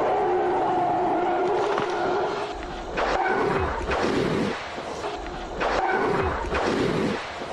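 Tyrannosaurus rex roar sound effect from a TV dinosaur documentary: a long pitched roar, then shorter roars with a deep rumble about three seconds in and again near six seconds.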